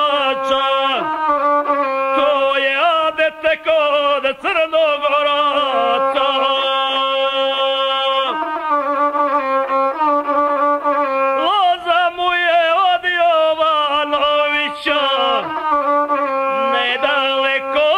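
Gusle, the single-stringed bowed folk fiddle, playing an instrumental interlude in epic singing: a busy line of quick trills and slides, with a few longer held notes, one lasting about two seconds in the middle.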